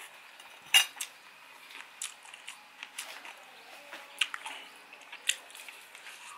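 Metal spoon and fork clinking and scraping against a ceramic plate while scooping up fried rice: a string of separate sharp clinks, the loudest a little under a second in.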